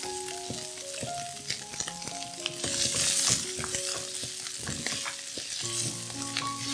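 Torn lion's mane mushroom sizzling in hot oil in a nonstick frying pan, stir-fried with a spatula that ticks and scrapes against the pan.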